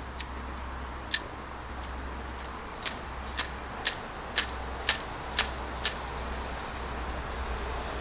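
Fishing line snagged on rocks being flicked by hand to work it loose, giving short, sharp ticks. There is one tick at the start and another just after a second in, then a regular run of about two a second from about three to six seconds in.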